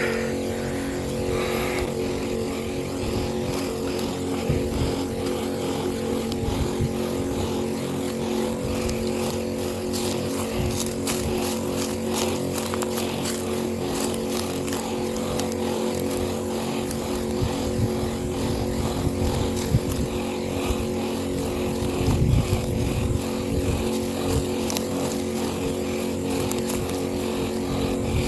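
Small engine of a motorized knapsack herbicide sprayer running steadily at a constant speed while it sprays a fine mist of weed killer.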